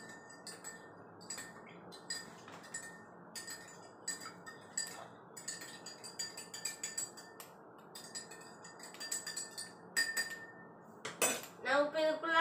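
Metal spoon stirring salt into water in a clear drinking glass, clinking against the glass over and over at an uneven pace while the salt dissolves. A louder clatter comes near the end, and a voice starts just after it.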